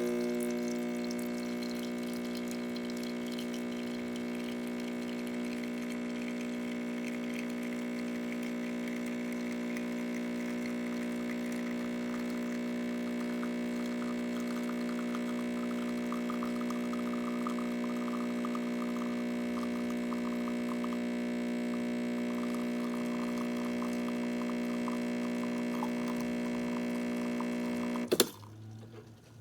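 Breville Barista Express espresso machine's vibratory pump humming steadily, with liquid trickling, as during an espresso shot pull. It cuts off suddenly with a click near the end.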